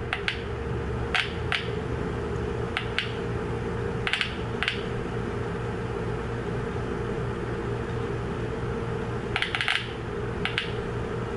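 Small cluster buzzer speaker from a Volvo VNL semi truck giving short clicks each time a 9-volt battery is touched to its terminals, a scattered handful of clicks, some in quick pairs, over a steady hum. The clicks show the speaker works and its resoldered connections are good.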